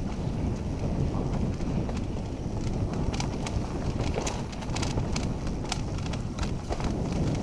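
Mountain bike rolling down a rocky singletrack: a steady low rumble from the tyres on stones and dirt, with frequent irregular clicks and rattles from the bike over the bumps.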